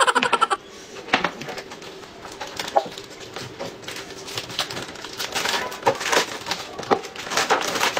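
Crinkling and clicking of packaging as the lid is peeled off a tub of instant rice noodles and the tub and lid are handled, an irregular run of small crackles and taps.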